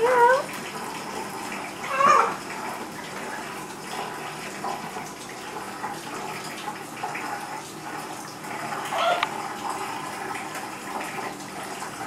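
Kitchen tap running a thin stream into a stainless-steel sink, steady throughout. Over it, a green-winged macaw gives a few short, soft calls that bend in pitch: one at the start, one about two seconds in, and one about nine seconds in.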